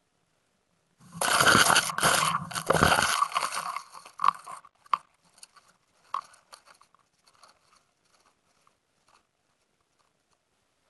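360 camera crashing into the branches of a snowy evergreen: sudden dense crunching and scraping of needles and twigs against the camera, starting about a second in and lasting three to four seconds, then scattered crackles and ticks that thin out as it settles in the branches.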